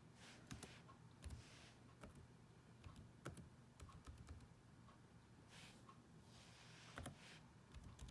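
Faint, irregular clicks of laptop keyboard keys as digits are typed in one by one.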